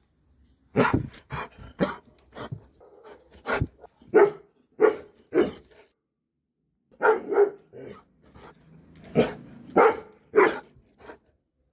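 Doberman barking repeatedly, about a dozen short barks in two runs with a brief pause between.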